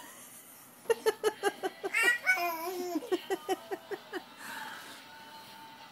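Laughter: a quick run of short 'ha' pulses, about five a second, starting about a second in and lasting around three seconds.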